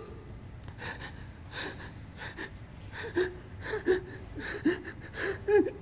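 A man sobbing close to a microphone: about ten short, broken cries and gasping in-breaths, roughly two a second.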